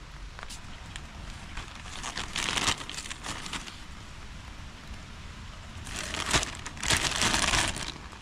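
Rain pattering on a tarp with scattered drips, broken by two spells of crinkling, rustling handling noise, about two seconds in and again about six seconds in, the second the louder.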